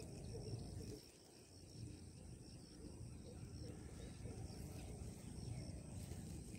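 Faint outdoor background noise: a low rumble with a steady thin high-pitched tone above it, the rumble dropping away briefly about a second in.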